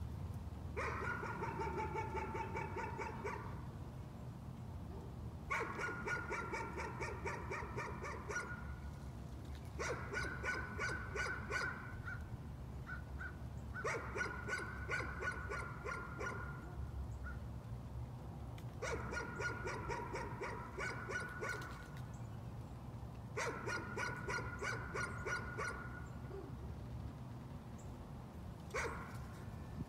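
A dog barking persistently in bouts of about three seconds of rapid barks, a new bout every four to five seconds. It is nuisance barking, kept up even though the dog cannot see anyone.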